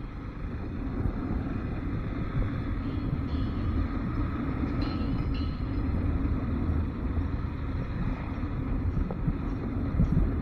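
Motorcycle engine running steadily while riding, with a low, even rumble of engine and road noise.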